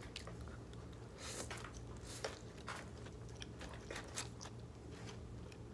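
Close mouth sounds of a person chewing rice vermicelli noodles with grilled meat and fresh greens: soft irregular clicks and crunches. A faint steady low hum runs underneath.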